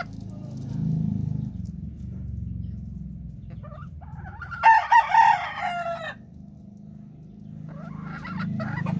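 Gamecock rooster crowing once, a call of about two seconds near the middle, over a low steady rumble. A shorter, fainter call follows near the end.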